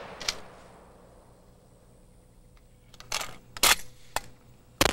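Pump-action shotgun: after a quiet stretch, a few sharp clacks come a little past halfway, then a shot rings out near the end.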